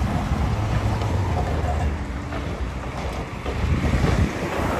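High-reach demolition excavator working, its engine rumbling steadily as the jaw attachment on the long arm bites into the concrete roof slab. A louder, rougher crunching stretch comes a little before the end.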